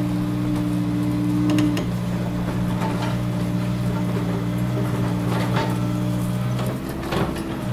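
Komatsu PC200 hydraulic excavator's diesel engine running steadily under digging load, its note shifting about two seconds in and dipping near the end. A few sharp knocks of the bucket and tracks are scattered through.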